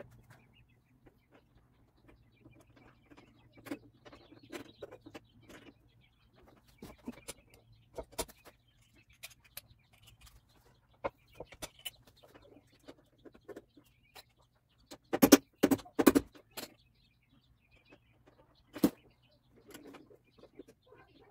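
Scattered light clicks and knocks of hands fitting lights and wiring on a Ford Model T's front end, with a cluster of louder knocks about fifteen seconds in, over a faint steady low hum.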